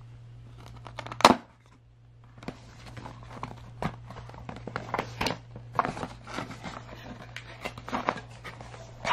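Cardboard camera box being opened by hand: a sharp snap about a second in, then a run of irregular scraping and crinkling as the end flap is worked open and the packing inside is pulled out.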